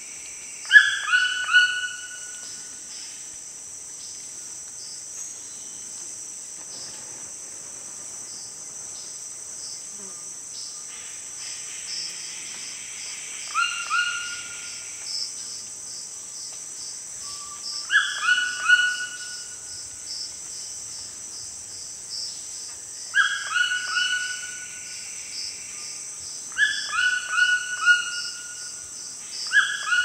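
Red-billed toucan giving loud calls in bouts of two to four short notes, each note dropping in pitch, about six bouts spread through, over a steady high-pitched drone of cicadas. Other birds call faintly between the bouts.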